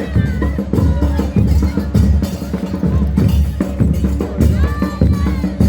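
Loud music with a steady drum beat and percussion over a deep bass, with voices above it.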